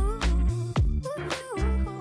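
Background music with a steady funk-style beat: a kick drum about every three quarters of a second under a sliding melody line.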